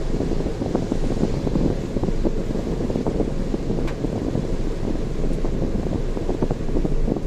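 Steady low rumble of a vehicle being driven along a road, road noise mixed with wind buffeting the microphone, flickering constantly with no clear engine tone.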